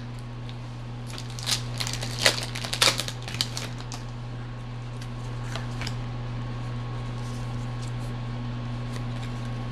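Foil booster pack wrapper being crinkled and torn open in a run of sharp crackles during the first few seconds, with a few faint rustles later. A steady low hum runs underneath.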